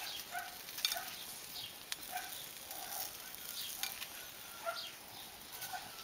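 Sausage skewers sizzling faintly over hot charcoal on a grill, a steady low hiss, with short animal calls now and then in the background and a single sharp click about two seconds in.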